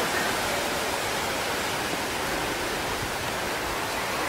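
Tsunami floodwater rushing over the ground, a steady, even rush without a break.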